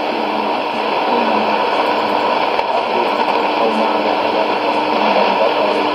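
Sony ICF-2001D shortwave receiver tuned to a weak AM signal on 6100 kHz: steady heavy static hiss, with faint broadcast audio barely coming through underneath.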